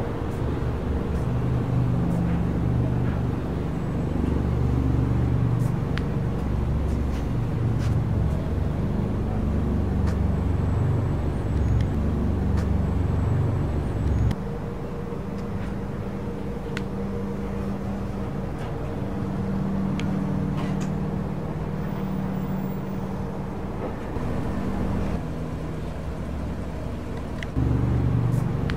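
Steady low rumble of motor-vehicle engines and road traffic, with a few faint clicks. The rumble changes abruptly about halfway through and again near the end.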